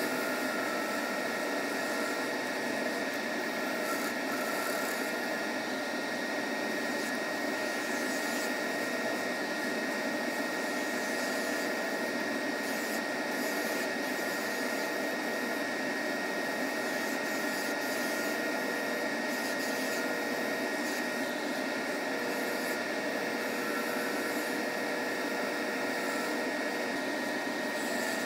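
Wood lathe running steadily while a skew chisel takes light passes along a spinning cross-grain pen blank, a continuous even whir with a steady high whine.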